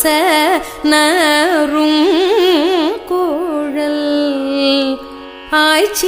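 Carnatic vocal music: a singer draws out the syllables of a Tamil devotional verse in long notes with wavering, ornamented turns of pitch, over a steady held drone.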